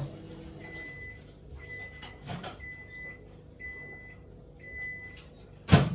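Microwave oven finishing its 30-second heating cycle: its running hum stops, then it gives five short high beeps about once a second to signal it is done. A loud clunk follows near the end.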